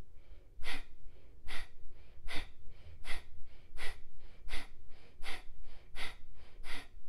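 A woman doing breath of fire, the yogic breathing exercise: a run of short, forceful exhales with the belly pulled in, about one every three-quarters of a second, with soft passive inhales between.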